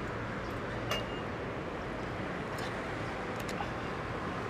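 Steady street traffic noise from passing cars, with a couple of faint clicks.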